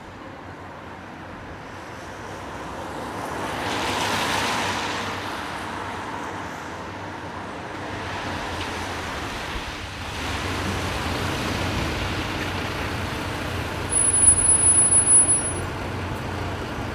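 Road traffic on a wet road: a vehicle swishes past about four seconds in, then a bus engine draws near and grows louder. Near the end, a high steady squeal lasts about a second and a half as the bus pulls in and brakes.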